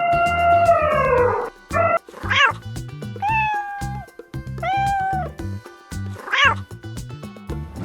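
A cat meowing: one long falling meow, then four shorter meows spaced about a second apart, over background music with a steady beat.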